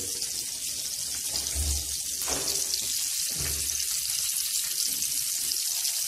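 Flour-dusted flounder fillets frying in hot oil in a frying pan: a steady sizzling hiss with fine crackles.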